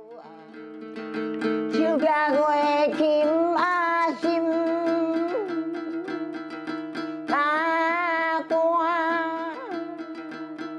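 An elderly woman sings a Hengchun folk song in Taiwanese, accompanying herself with repeated plucked notes on a yueqin (moon lute). She sings two phrases of long, wavering held notes, the first starting about two seconds in and the second about seven seconds in, with the lute carrying on alone between them.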